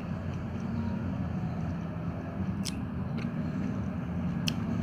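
Several cats eating from plastic containers, with chewing and a few sharp clicks over a steady low rumble.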